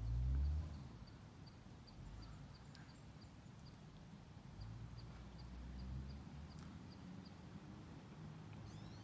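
Faint outdoor ambience with a short low thump on the microphone at the start and a weaker low rumble midway. A faint, regular high ticking repeats about two or three times a second, pausing briefly in the middle, and a brief falling chirp comes near the end.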